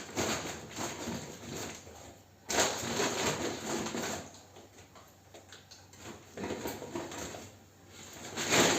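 Groceries being handled and unpacked: rustling and light handling noises that come in a few bursts, with quieter gaps between.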